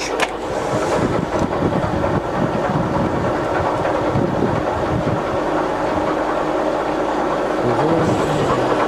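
Scott 6280L heavy-duty lathe running steadily under power, its headstock and feed gearing whirring as the carriage moves slowly on power feed. A short click right at the start comes as the feed direction is reversed.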